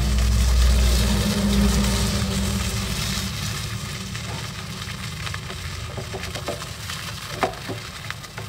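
Salted threadfin bream sizzling as they fry in oil in a nonstick pan, a steady hiss. There is a low rumble in the first two seconds, and a few light clicks of chopsticks against the fish and pan near the end.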